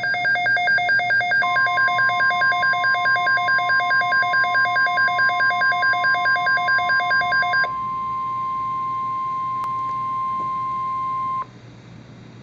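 NOAA Weather Radio warning alarm tone: one steady high tone near 1 kHz that starts about a second in, holds for about ten seconds and cuts off sharply near the end. For the first seven to eight seconds a fast electronic beeping of several tones, about three to four beeps a second, sounds over it, typical of a weather radio receiver's own alert. Faint hiss is left after the tone stops.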